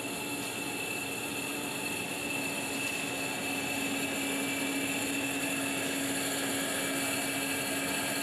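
Steady machine noise beside blazing casting furnaces: a motor running evenly with a constant low hum and a high whine over a broad rushing sound.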